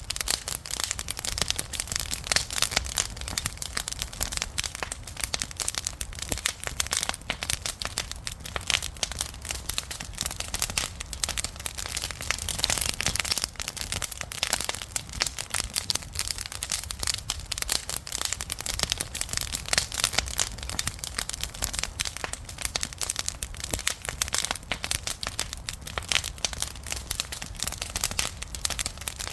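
Campfire crackling continuously, with dense, irregular snaps and pops over a low steady rumble.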